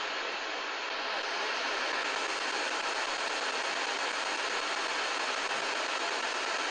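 Steady shortwave static hiss from a Sony ICF-2010 receiver's speaker as it tunes up through the 49-metre band between stations.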